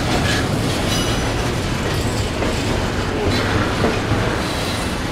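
Freight train cars rolling past close by: a steady rumble of wheels on the rails, with a couple of brief high wheel squeals about a second in.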